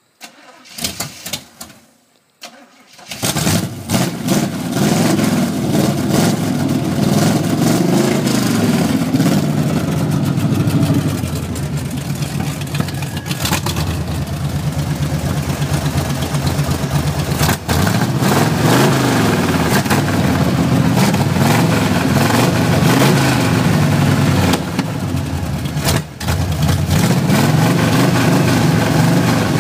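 Chevrolet El Camino engine cranked briefly and catching about three seconds in, then running and being revved up and down; the owner calls it a bad motor.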